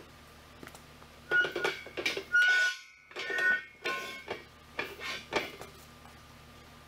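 Steel post and crossbeam of a four-post car lift knocking and scraping together as they are pushed into line on a concrete floor. A burst of metal clanks with bell-like ringing starts about a second in and dies away after about five seconds.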